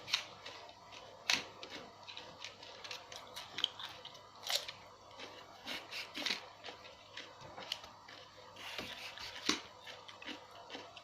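Someone biting into and chewing crunchy raw food, with sharp crunches at irregular intervals.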